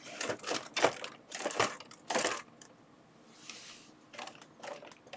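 Tools and a tool organizer being handled: a string of sharp clicks and knocks of hard objects set against each other, busiest in the first half, then a soft rustle and a few lighter clicks.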